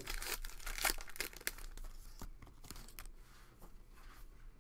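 Foil wrapper of a baseball card pack being torn open and crinkled by hand. It is loudest in the first second and a half, then fades to softer rustling.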